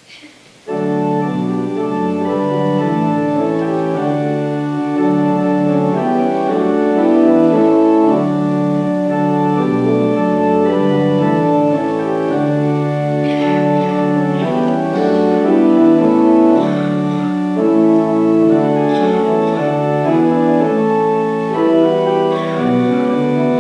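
Church organ playing a hymn in full, sustained chords, starting about a second in.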